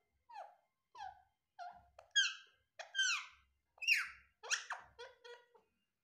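Alexandrine parakeet giving a run of short squeaky calls, about two a second, each sliding down in pitch, growing louder toward the middle and ending in a few quick chattering notes.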